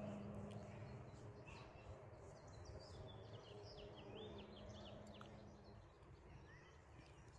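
Faint backyard ambience: small birds chirping in quick short notes, over a low steady hum that fades out about six seconds in.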